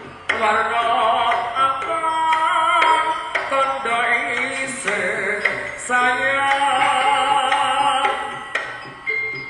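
Live East Javanese jaranan music: a wavering, ornamented melody line over a traditional gamelan-style ensemble, with occasional sharp percussive strikes.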